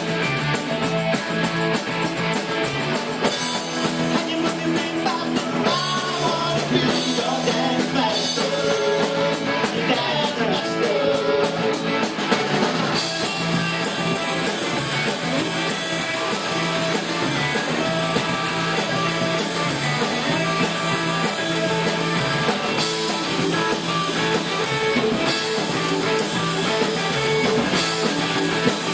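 Rock band playing a song with electric guitar, drum kit and singing, on a steady beat.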